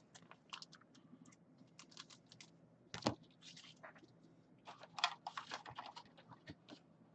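Scattered light clicks and taps at an irregular pace, one sharper knock about three seconds in and a small run of clicks around five seconds.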